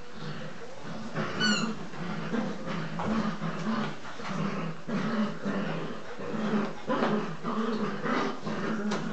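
English Cocker Spaniel puppies growling in play while tugging at a toy, a steady run of short, low growls one after another. A brief high squeak about one and a half seconds in.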